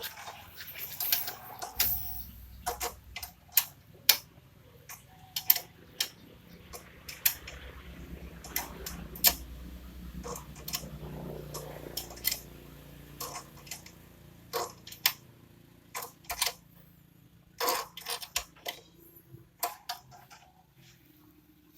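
Spanners clinking and tapping on a motorcycle's chain adjuster bolts and axle nut, a string of irregular metallic clicks and knocks while the chain tension is set.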